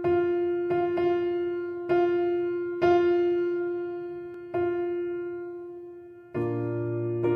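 Slow background music on a piano-like keyboard: single notes struck about a second apart and left to ring out, then a fuller chord near the end.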